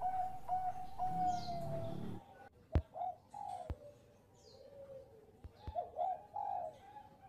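Bangkok-type zebra dove (perkutut) cooing: a quick run of short staccato coo notes and a longer drawn note, breaking off about two seconds in. Quieter scattered coo notes follow, with a few sharp clicks.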